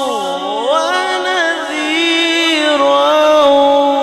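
Man reciting the Quran in the melodic tilawat style through a microphone, drawing out one long ornamented phrase whose pitch sweeps up and down several times.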